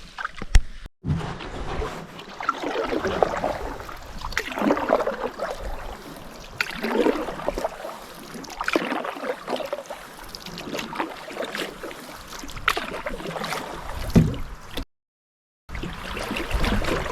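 Canoe paddle strokes pulling through creek water, a swirling surge about every two seconds, while paddling upstream against a strong current. The sound cuts out briefly twice.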